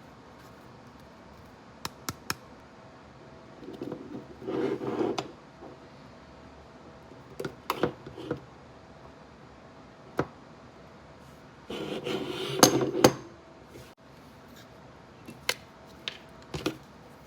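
Airsoft Glock 45 pistol being handled and cleaned: scattered sharp clicks and knocks of its parts, with two short spells of rubbing and rattling handling about four and twelve seconds in.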